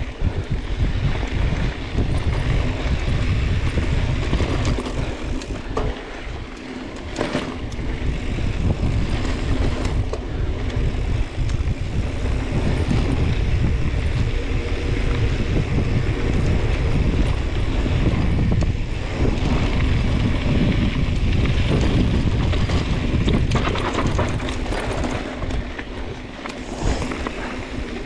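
Wind buffeting an action camera's microphone on a fast mountain-bike descent, a steady low rumble mixed with the rolling noise of tyres on a dirt trail, with a few sharp knocks from the bike over bumps.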